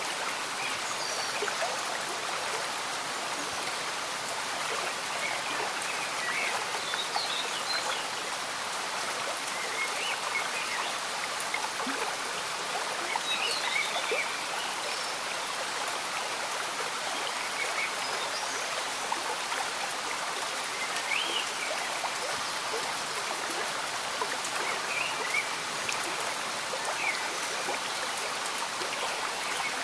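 Steady rain falling over a gently bubbling stream, with faint short high chirps now and then.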